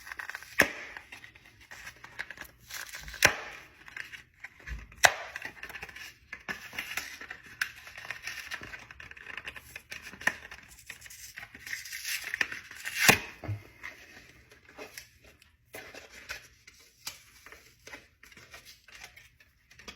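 An iPhone 15 box being unsealed and opened by hand: tearing, rustling and scraping of paper and cardboard, with several sharp clicks and knocks as the box and its contents are handled.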